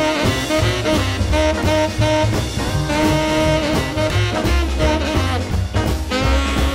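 Background music: an instrumental break in an upbeat swing-style rock-and-roll song, with horns playing held notes over a steady beat.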